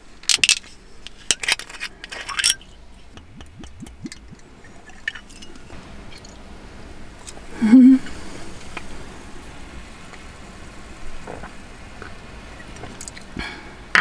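A small glass bottle and a small metal cup clinking as they are handled, a quick run of sharp clinks in the first couple of seconds and a few lighter taps after. A brief hum from a woman about eight seconds in.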